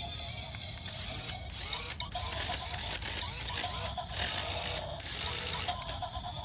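Toy RC stunt car's small electric motors running in several short bursts, whirring as it drives and spins, with its wheels scrubbing on the floor.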